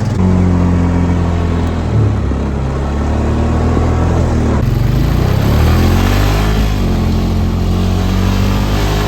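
ATV engine running under load as the four-wheeler is ridden in four-wheel drive up a snowy track, its pitch dipping and climbing again a couple of times as the throttle changes, over a steady rush of noise.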